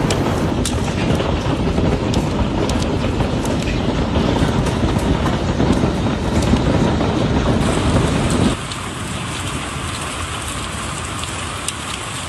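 Heavy storm rain with a deep wind rumble, dotted with sharp ticks of drops or hailstones striking a surface. About eight and a half seconds in, it cuts abruptly to a lighter, steadier patter of rain.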